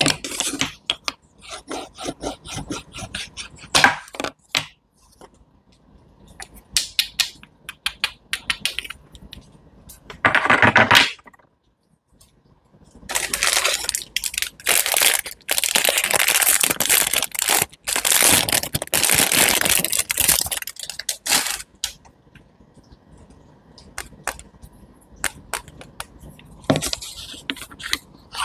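Knife cutting through crisp produce on a cutting board: sharp clicks and crackling crunches, with a long stretch of dense crunching in the middle.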